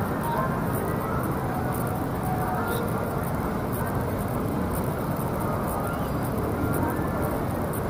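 Steady city background hum, mostly distant traffic.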